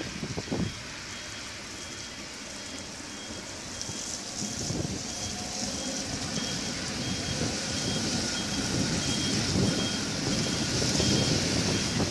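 A tram backing up with its reversing warning beeper going: short, high-pitched beeps repeating evenly, about three every two seconds. Under the beeps the tram's running noise on the rails grows louder as it comes close, over a wet, windy background hiss.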